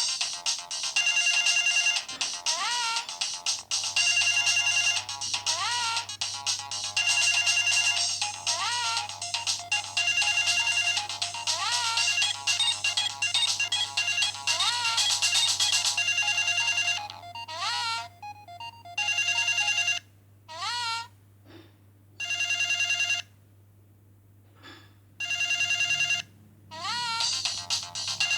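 Samsung SGH-X210 mobile phone playing an electronic ringtone melody that loops, with a note sliding upward every couple of seconds over a steady high tone. In the last third the tune thins out and breaks into short pauses.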